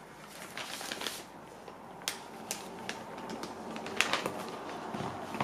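A plastic zip-lock bag crinkling and rustling as modeling-mask powder is scooped out with a plastic measuring scoop and tipped into a rubber mixing bowl, with a few light clicks and taps; the sharpest comes about four seconds in.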